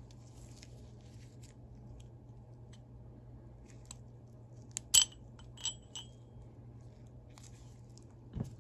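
Steel ratchet parts being handled: faint ticks and taps, then a sharp, ringing metallic clink about five seconds in, two lighter clinks just after it, and a dull knock near the end.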